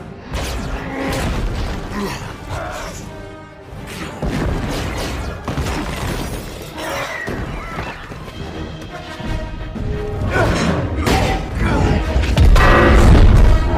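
Dramatic music mixed with crashes, shattering and booms of battle-scene destruction, loudest near the end.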